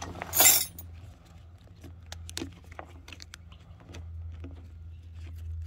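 Canvas drawstring bag being handled and opened: a loud rustle of canvas about half a second in, then scattered light clicks and rustles from handling, over a steady low hum.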